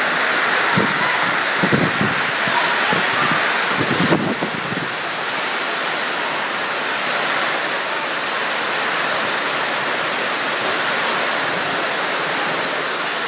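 Heavy downpour: a loud, steady hiss of rain, with a few brief low bumps in the first five seconds.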